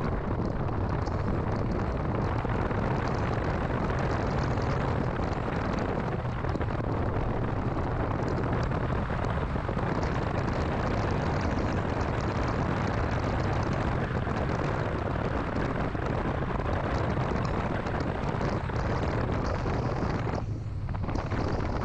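2006 Mini Cooper S on the move: a steady mix of engine and road noise, heaviest in the low end, with a brief drop near the end.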